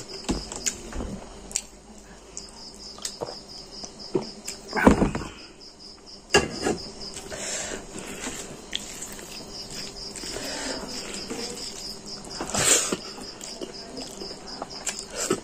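An insect's fast, pulsing high trill that breaks off for a few seconds in the middle and then resumes. Over it come close eating noises from rice eaten by hand off a metal plate: chewing and lip smacks, with a few louder smacks about five seconds in and near the end.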